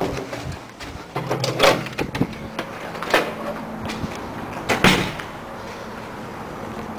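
Several sharp knocks and clunks in the first five seconds, the loudest about a second and a half in and near five seconds, over a steady low hum.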